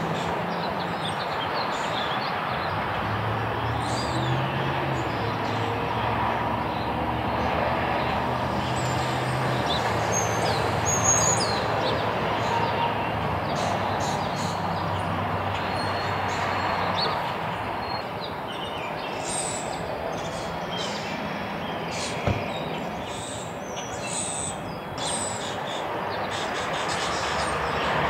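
Songbirds chirping in short high calls over a steady urban background of traffic noise, with a low engine hum that runs through the first two-thirds and shifts in pitch a few times.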